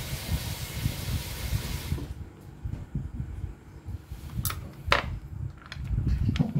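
A steady hiss that cuts off abruptly about two seconds in, over low rumbling handling noise, then a few sharp clicks as a hand works the brass refrigeration manifold gauge set and its valve knob.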